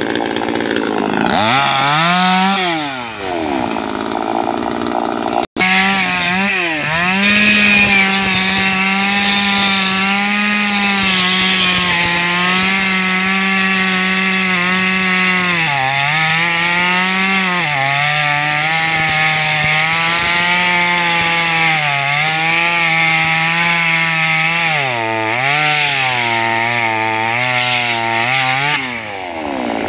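Top-handle chainsaw running at high revs while cutting into teak roots, its engine note sagging under load again and again as the chain bites and then picking back up. There is a sudden brief break about five and a half seconds in, and the revs fall away near the end.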